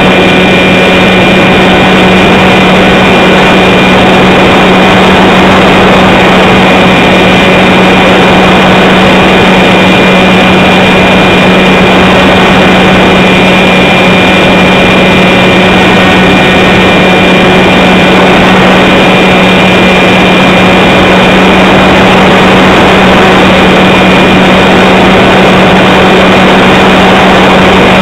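Motor and propeller of a radio-controlled model aircraft running steadily in flight, very loud and close as picked up by the camera carried on the aircraft, with a constant hum and a thin high whine over rushing air noise.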